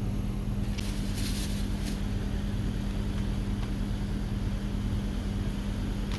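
A steady low mechanical hum throughout, with a few short hissy noises about a second in.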